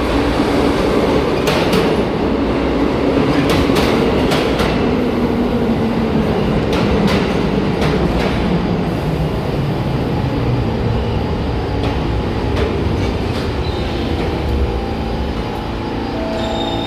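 New York City subway train running through the station and slowing, its wheels clicking over rail joints while a motor whine falls steadily in pitch.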